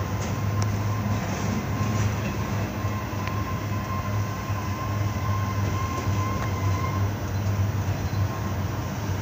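Norfolk Southern double-stack intermodal freight train rolling past, a steady rumble of wheels on rail. A thin steady wheel squeal sounds over it from about a second and a half in until about seven seconds.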